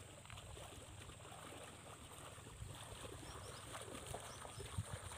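Faint sloshing of water as a man wades through shallow floodwater carrying a wet cast net.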